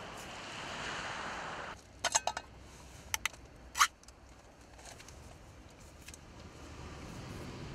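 A ring-pull food tin being opened by hand: a quick run of small metallic clicks about two seconds in, two more clicks, then the louder crack and tear of the lid breaking its seal about four seconds in. Before that, a steady hiss cuts off suddenly just under two seconds in.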